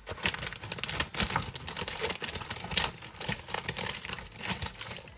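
Clear plastic bag of LEGO pieces crinkling as it is handled and opened by hand, with many small clicks and rattles of the plastic parts inside.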